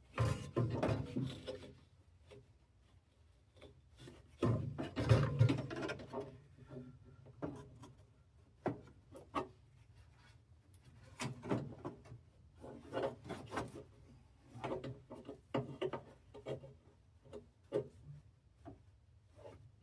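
Intermittent handling noises: rubbing and scraping in two longer spells, then scattered light clicks and knocks.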